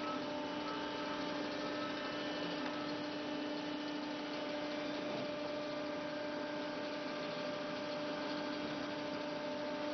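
E-Crane material-handling crane's machinery running, a steady hum made of a few steady tones over an even hiss.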